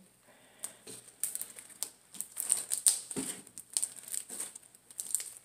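Homemade Elmer's-glue slime being stretched and squeezed by hand: a run of irregular sticky crackles and small pops.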